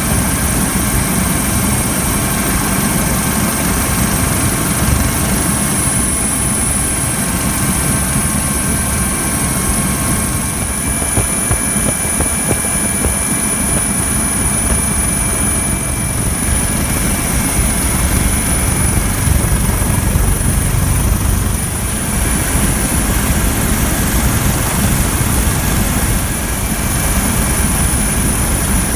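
Coast Guard MH-65 Dolphin helicopter in flight, heard from aboard: a steady rotor and turbine din with a thin high whine over it.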